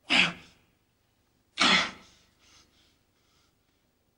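A man gasping sharply twice, about a second and a half apart, each a short breathy rush of air, followed by faint breathing.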